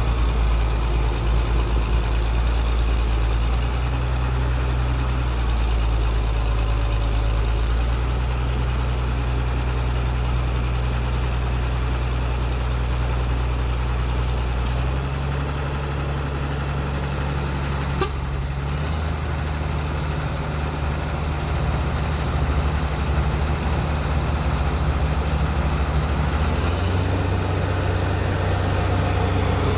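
Heavy logging truck engine running, its low note shifting up and down in steps, with a single sharp click about midway.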